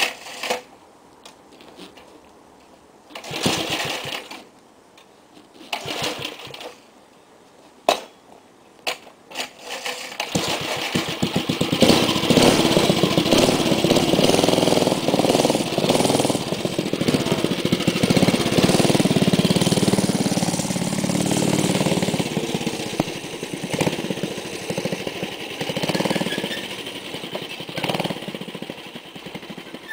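A vintage minibike's Briggs & Stratton 5 hp flathead engine is being started. It fires in several short sputtering bursts over the first ten seconds, then catches and runs steadily. Near the end it grows fainter as the bike moves away.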